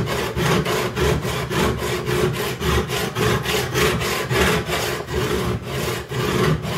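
Steel chisel rubbed back and forth on the coarse 200-grit perforated plate of a Harbor Freight Diamond Life diamond sharpening block: a fast, even rasping scrape, about five strokes a second, that stops at the very end. It is grinding metal away to work out a low spot in the chisel's edge.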